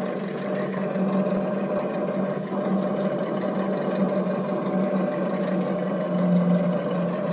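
A motor running steadily with an even, unchanging hum.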